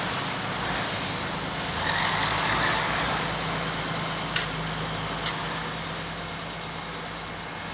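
Motor vehicle engine running steadily, with a sharp click about four and a half seconds in.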